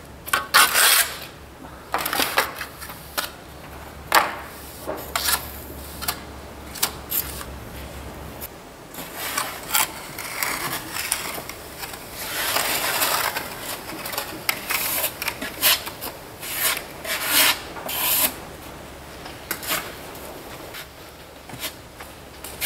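Steel plastering trowel scraping and spreading cement-based adhesive on a wall, in many short, irregular strokes.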